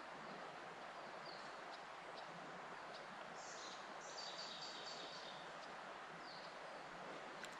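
Steady rush of flowing river water, with birds chirping high above it and a quick run of twittering about three to five seconds in.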